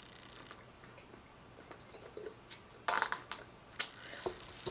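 Quiet sipping from a paper coffee cup, then a brief rustle about three seconds in and a few sharp clicks and taps as the cup is handled and set down among paper food wrappers on the table.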